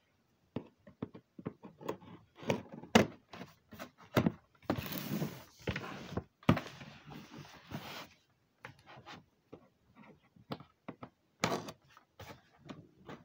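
Scissors snipping and scraping at the packing tape on a cardboard box, with knocks and taps from the box being handled. A longer scraping stretch runs from about five to eight seconds in.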